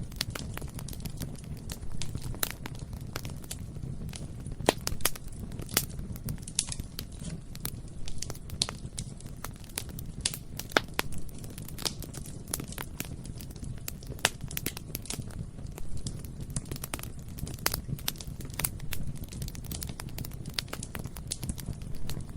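Bonfire burning: a steady low rumble of flames with irregular crackling and sharp snaps and pops of burning wood.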